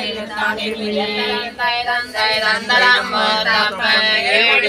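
A group of men and women chanting devotional verses together in Tamil: a parayanam recitation, sung on held, gliding notes without a break.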